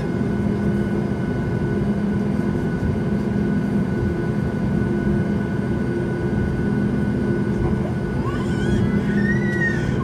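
Steady jet cabin noise of a Boeing 737 MAX 8 airliner, a constant roar with a low hum from its CFM LEAP-1B engines. Near the end a baby gives a brief wavering cry over it.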